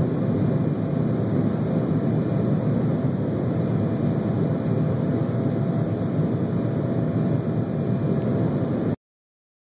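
Steady rumbling cabin noise of an airliner's jet engines and rushing air during the climb after takeoff, heard from a window seat over the wing, with a faint steady whine. It cuts off suddenly near the end.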